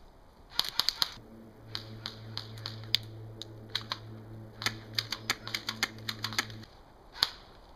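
Airsoft gunfire in a skirmish: a string of sharp, irregular cracks, some in quick clusters, with one more crack near the end. A steady low hum runs under the shots from about a second in until shortly before the last crack.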